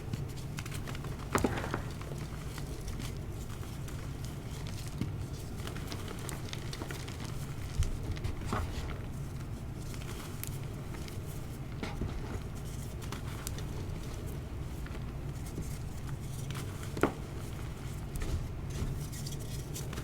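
Dyed gym chalk being crushed and crumbled by hand: scattered sharp crunches and cracks with a fine crumbling crackle between them, over a steady low hum.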